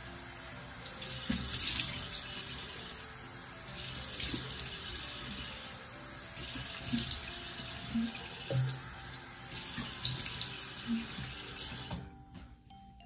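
Bathroom sink tap running steadily while water is splashed up onto the face, with louder splashes about every three seconds. The tap is turned off near the end.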